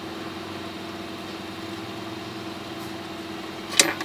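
Steady machine hum, like a fan or motor running, with one even tone. A single sharp click comes near the end.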